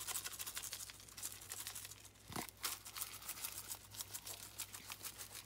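Shaker bottle of dry seasoning being shaken in quick strokes, the granules rattling out in rapid clicks, heaviest in the first second and then lighter and sparser.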